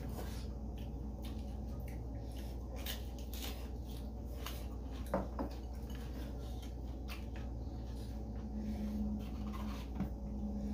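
Eating at a table: scattered soft clicks of chopsticks against food and dishes, with mouth noises of chewing, over a steady low hum.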